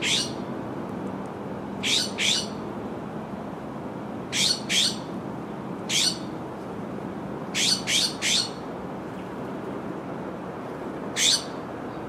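A sparrow giving sharp, downward-sweeping chip calls, singly or in quick runs of two or three, about every two seconds, over a steady low background rush.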